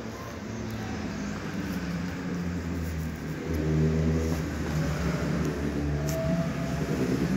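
A motor vehicle's engine running with a steady low rumble, growing louder from about halfway through.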